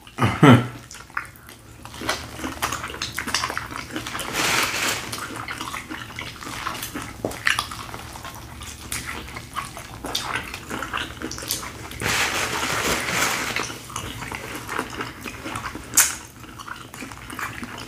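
Close-miked eating: biting and chewing corn on the cob and a rolled flour tortilla, in noisy stretches of a few seconds with a few sharp clicks between.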